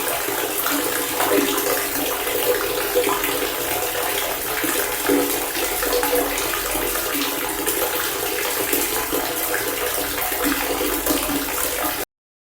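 Water pouring steadily from a faucet-style fountain, a continuous splashing rush that cuts off suddenly near the end.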